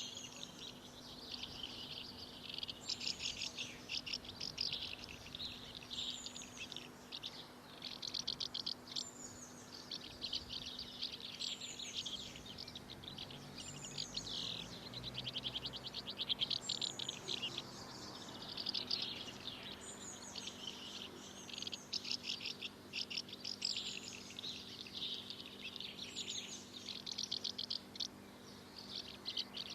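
A songbird singing continuously: repeated phrases about every one to two seconds, each opening with a high falling note and running into a fast rattle of notes.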